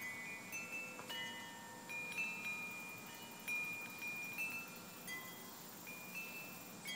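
Metal-tube wind chime with a wooden striker, light tinkling: the striker hits the tubes at irregular moments, roughly every half second to a second, and each clear mid-range tone rings on and overlaps the next.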